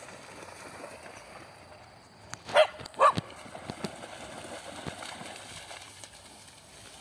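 Dog barking twice, two short barks about half a second apart near the middle.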